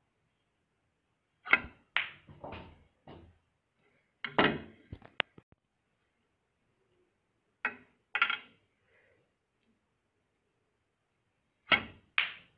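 Snooker balls clicking through four shots: in each, a sharp click of the cue striking the cue ball, then about half a second later the click of ball hitting ball, with fainter clicks after.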